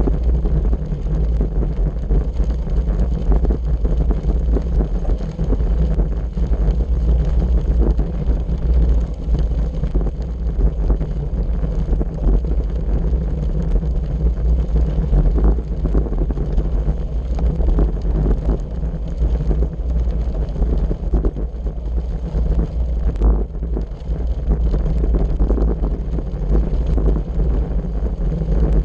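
Wind buffeting a bicycle-mounted action camera's microphone as a road bike rolls over a gravel road, a steady low rumble with many small crunches and rattles from the tyres on the loose surface.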